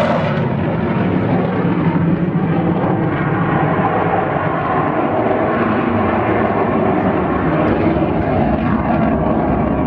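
Aircraft engine noise, loud and steady throughout.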